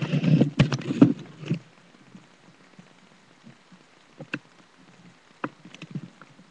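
Handling noise from a webcam being picked up and repositioned: a cluster of knocks and rubbing in the first second and a half, then a few single sharp clicks near the end.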